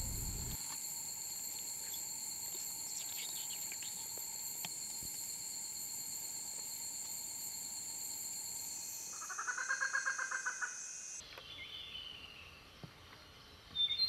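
Night insects trilling steadily at several high, level pitches. About nine seconds in, a short, rapidly pulsing animal call lasts about two seconds. The insect sound cuts off abruptly about eleven seconds in, leaving faint outdoor ambience.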